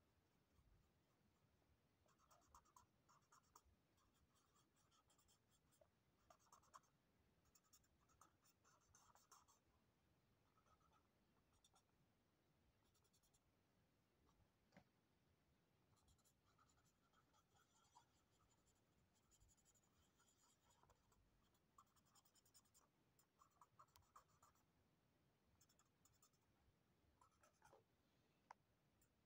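Black felt-tip marker drawing on sketchbook paper: faint, quick strokes of hatching in clusters with short pauses between them.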